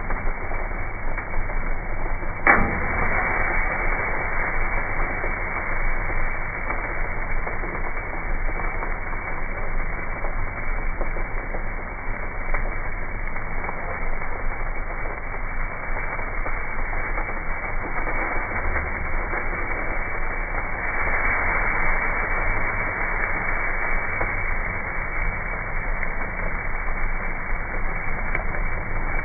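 Marinated fajita meat sizzling on a hot pellet-grill grate, a steady hiss that swells louder for a few seconds about three-quarters of the way through. A single sharp click comes about two and a half seconds in.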